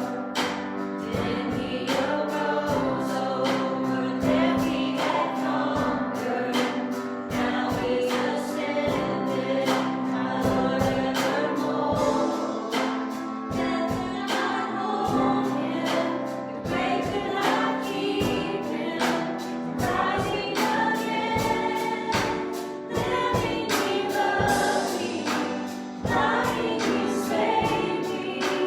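Live church worship music: singers with a band, a sustained low keyboard or bass note underneath and a steady drum beat.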